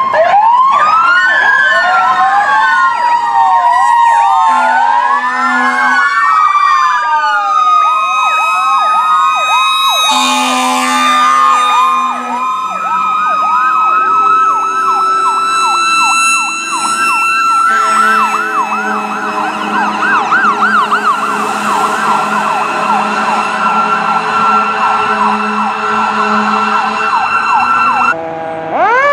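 Several emergency-vehicle electronic sirens sounding together, slow rising and falling wails overlapping in the first part, then fast yelps through the rest. Low steady fire-truck air-horn blasts come in over the sirens, the loudest about ten seconds in.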